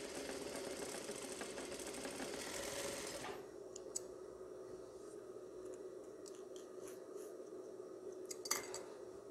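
Sewing machine stitching a seam in one fast run for about three seconds, then stopping. Light clicks and taps from handling the fabric and machine follow, over a steady hum.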